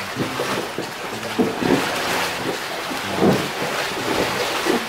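A person gulping down ice-cold beer, several separate swallows.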